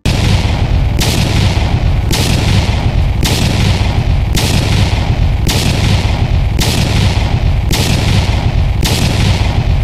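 Fireworks sound effect: a loud, dense crackle of bursts over a heavy low rumble, with a sharper bang about once a second.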